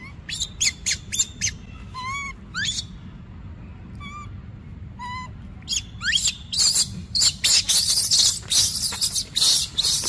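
A few short, high chirping calls, then from about six and a half seconds in a loud run of crunching and rustling: footsteps on dry leaf litter.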